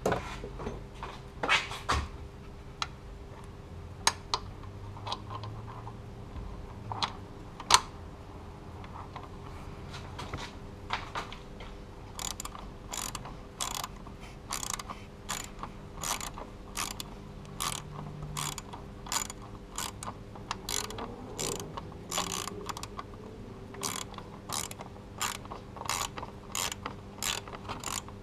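Hand socket ratchet with an extension clicking as it turns a bolt, in a steady run of quick strokes of about two to three clicks a second from around the middle onward. The first part has scattered separate clicks and knocks.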